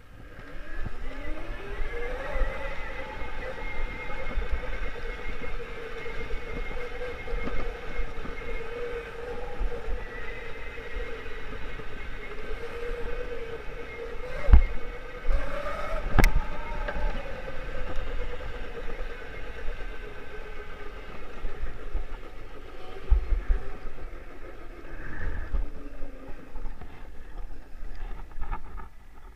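Electric motor of a custom 3000 W, 72 V Puch Maxi moped whining under way on a bumpy dirt trail. The whine rises in pitch over the first couple of seconds, holds steady, and sinks near the end as the bike slows to a stop. Low wind rumble and dull bumps run underneath, with two sharp knocks about halfway through.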